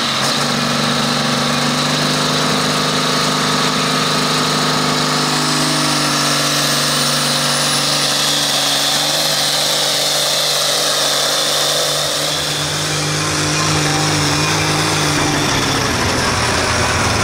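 Deutz pulling tractor's diesel engine running hard under load as it pulls the weight sled, its note shifting as it goes, with a high whine climbing steadily in pitch from about a third of the way in.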